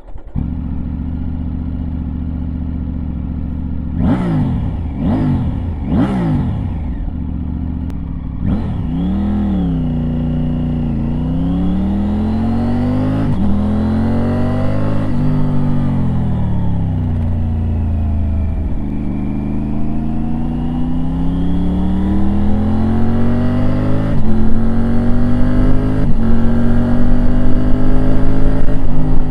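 Triumph Tiger inline-three motorcycle engine and exhaust, heard close up from a bike-mounted microphone: idling steadily, three quick throttle blips about four seconds in, then pulling away and accelerating up through the gears, the pitch rising and dropping back at each shift and growing louder near the end.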